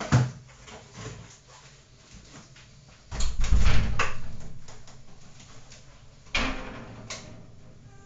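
Knocks and thumps: a sharp knock at the start, a louder rumbling, scraping noise about three seconds in that fades over a couple of seconds, and another sharp knock about six seconds in.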